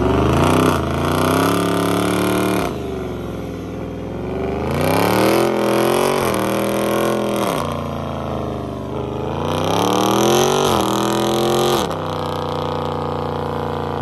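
Dodge Charger's engine at high revs during a burnout, its rear tyres spinning and smoking on asphalt. The engine note climbs and drops back three times, then holds steady near the end.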